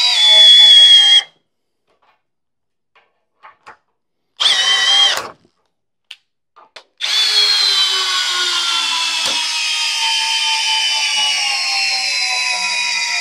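Hercules cordless hammer drill driving a 1/2 x 6 inch lag screw into a wooden post through a socket adapter. The motor's whine stops about a second in, runs again briefly near the five-second mark, then starts again at about seven seconds for a long run whose pitch slowly drops as the drill works under the load of the lag. A few small handling clicks fall in the pauses.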